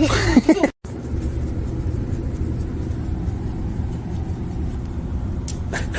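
Steady low rumble of a running vehicle engine, starting just after a short break about a second in.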